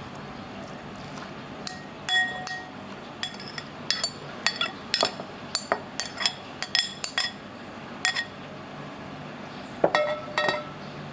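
A spoon clinking against a dish: a quick irregular series of short ringing clinks that stops for about a second and a half, then comes back briefly near the end.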